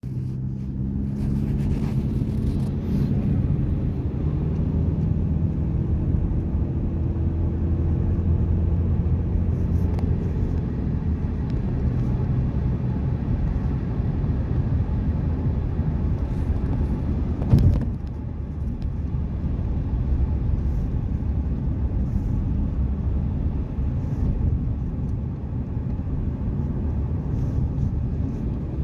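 Steady engine and tyre rumble heard inside the cab of a moving vehicle, the engine note rising slightly in the first few seconds. A short knock a little past halfway through.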